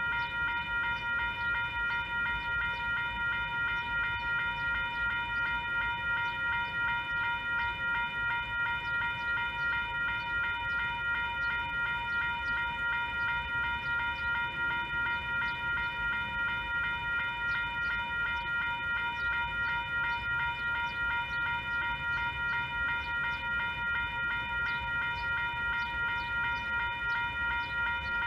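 Railroad grade-crossing warning bell ringing steadily at about two strikes a second, its metallic tone sounding while the crossing is activated for an approaching train.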